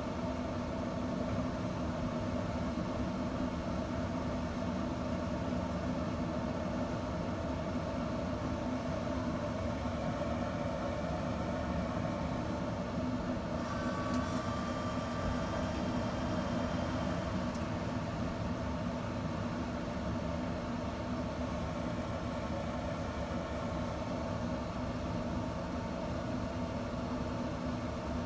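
Steady mechanical hum of a Camp Chef SmokePro pellet smoker's fan running while it smokes, holding one even pitch throughout.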